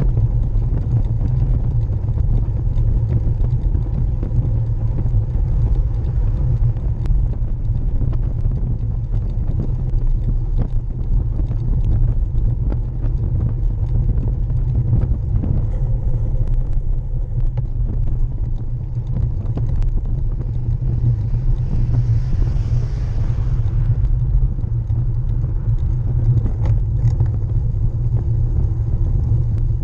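Road bike's rear tyre rolling over tarmac, picked up by a camera mounted by the rear wheel: a steady low road rumble and vibration, with a brief hiss about two-thirds of the way through.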